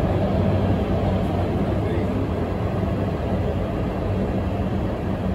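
Guangzhou Metro Line 7 train running, heard from inside the passenger car: a steady rumble of wheels on rail with a low, even hum.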